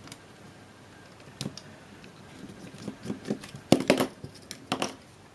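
Sharp plastic clicks and knocks from an Agfa ePhoto 1280 digital camera's casing and circuit-board stack being handled as a cover comes off. They are scattered at first, with the loudest in a quick cluster about four seconds in.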